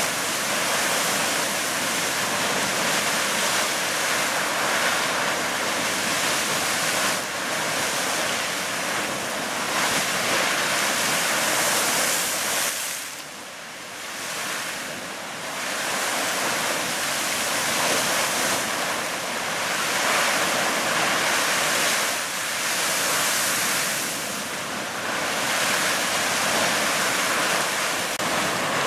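Fountain Geyser erupting: a steady rush of splashing water and venting steam, which eases for a couple of seconds about halfway through before picking up again.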